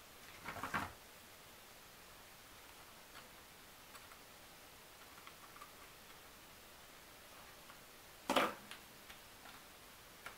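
Mostly quiet, with a few light taps and clicks of small laser-cut wooden parts and metal tweezers being handled on a tabletop. A short knock about eight seconds in is the loudest.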